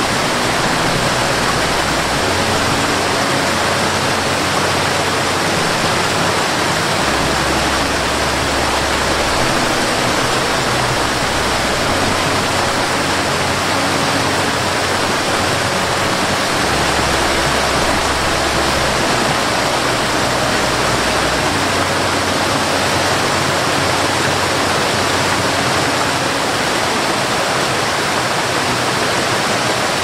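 Waterfall: a steady, loud rush of water cascading over rocks. Soft low sustained music notes sit beneath it, changing every few seconds.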